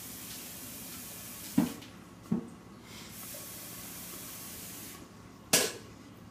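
Water poured into a drip coffee maker's reservoir, a steady hiss that breaks off briefly about two seconds in and stops about five seconds in. Two light knocks come during the pour and a louder one just after it ends.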